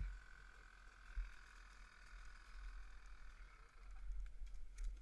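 Frogs calling in a faint, steady chorus that fades in the second half, with the low rumble of wind buffeting the microphone.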